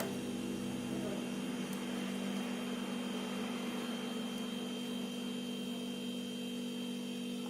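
A steady, even background hum with no change through the whole span.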